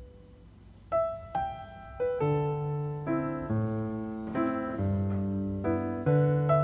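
Gentle background piano music: a single sustained chord fades out, then a new phrase of struck notes and chords begins about a second in.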